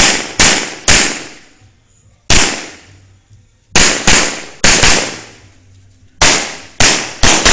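A string of about a dozen handgun shots, fired singly and in quick pairs with short pauses between, each shot ringing out briefly.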